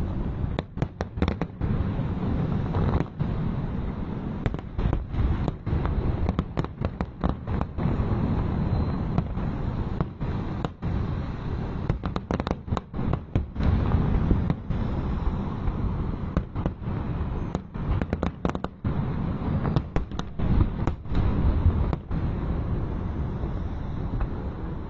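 Aerial fireworks display: a dense, continuous barrage of overlapping bangs and crackling bursts, heavy in the low end. The sound keeps dropping out for split seconds.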